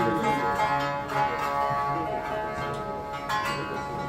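Three Tsugaru shamisen playing a trio, the strings struck with plectrums: ringing notes with a few sharp accented strikes, notably about a second in and again past the three-second mark.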